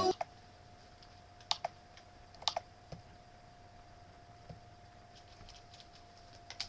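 A handful of scattered, sharp clicks and taps, two close together about two and a half seconds in, over a faint steady tone.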